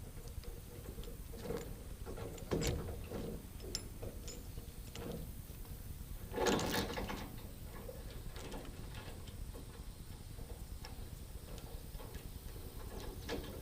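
Scattered mechanical clicks and rattles over a faint steady hum, with a louder scraping rustle about six and a half seconds in.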